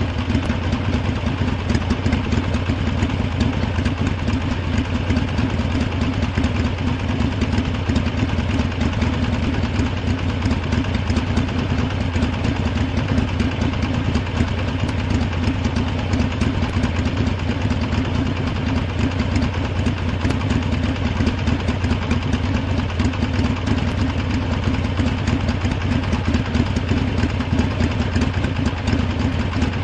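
Harley-Davidson motorcycle's V-twin engine idling steadily, with no revving.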